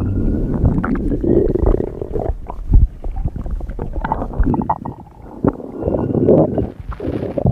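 Stomach growling sound effect: continuous bubbling rumbles and gurgles with many small pops, easing briefly about five seconds in before swelling again.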